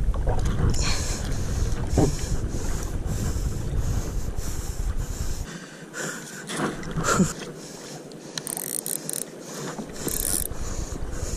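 Wind rumbling on the microphone over water noise around a fishing kayak, with a few sharp knocks near the middle; the low wind rumble drops away for a few seconds past the middle.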